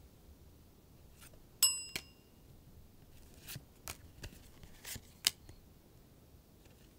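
A single short bell-like ding about a second and a half in, the loudest sound. Then come several soft clicks and swishes of Pokémon trading cards being slid and flipped by hand.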